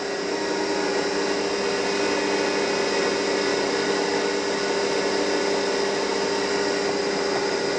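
CNC mini mill spindle motor running at a steady speed with an even whine while the program feeds slowly; the G code has the cutter set too high, so it is not reaching the work.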